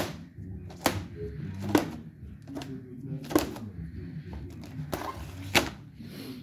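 Scissors snipping through clear plastic stretch wrap, with a sharp snip and crackle of film roughly once a second, about seven in all.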